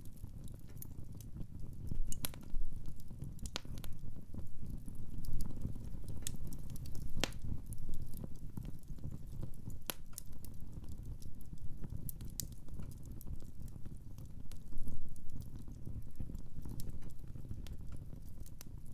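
Wood fire burning in a fireplace, crackling with irregular sharp pops over a low steady rumble.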